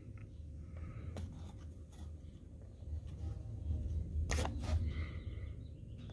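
Faint handling sounds as a red plastic horizontal poultry water nipple is screwed by hand into its threaded hole in 1-inch PVC pipe and snugged down nearly flush: light clicks and rubs of fingers on plastic, with two louder clicks about four seconds in, over a low steady hum.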